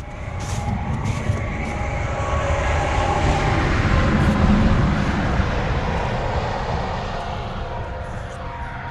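A passing engine, swelling to its loudest about halfway through and then fading away.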